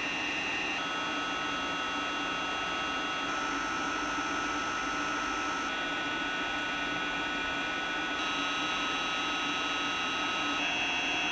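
3D printer cooling fan running on a PWM signal: a steady rush of air with high-pitched whine tones on top, the PWM noise of a switching frequency that falls in the audible range. The set of whine tones shifts in steps about every two and a half seconds.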